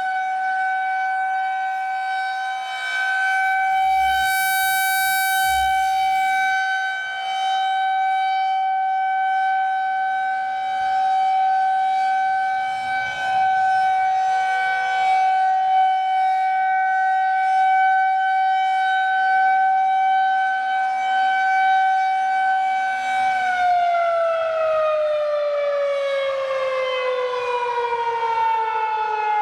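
Federal Signal 2001-130 electromechanical siren holding a steady single tone at full pitch, its loudness swelling and fading as the rotating horn sweeps past. Near the end it begins to wind down, its pitch falling steadily.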